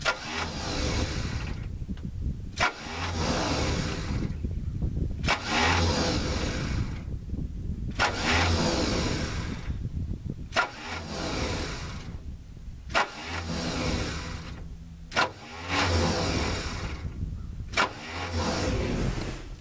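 Starter cranking a 1975 International 7.3-litre gas engine in about eight bursts of roughly two seconds, each starting with a sharp click, with short pauses between. The engine turns over without catching: a cold start on full choke after sitting all winter.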